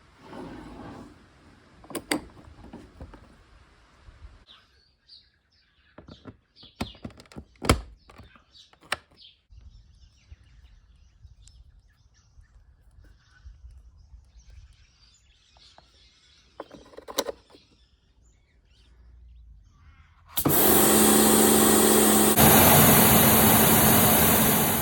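Sharp plastic clicks and knocks as the Karcher K2 pressure washer's fittings are snapped together, then near the end the pressure washer starts abruptly and runs loudly and steadily.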